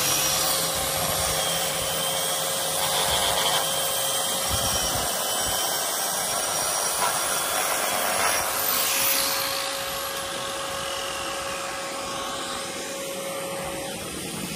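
Angle grinder running steadily with a whining note, its disc grinding out the mortar joints of a brick chimney to test how hard the mortar is. The mortar cuts out easily: a nice easy grind.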